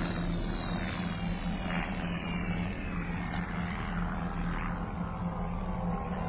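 Steady drone of a propeller aircraft's engine, with an eerie pitched tone sliding slowly downward over it.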